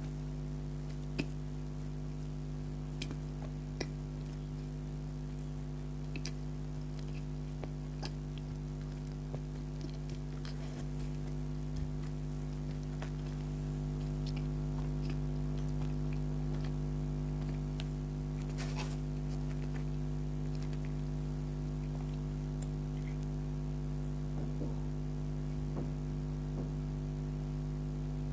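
Soft, scattered clicks and smacks of someone chewing a caramel donut, over a steady low hum.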